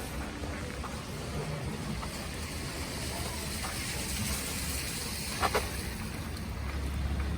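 Street traffic on a wet, snowy road: a vehicle's engine rumble with tyre hiss that swells in the middle as it passes. Two short clicks sound about five and a half seconds in.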